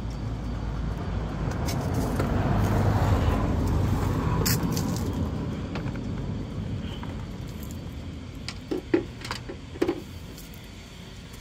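A vehicle passing on the street: a low rumble swells over the first few seconds, then slowly fades away. A sharp click about four and a half seconds in, and a few more clicks and knocks about nine seconds in, come from a cardboard box and plastic turn-signal lenses being handled.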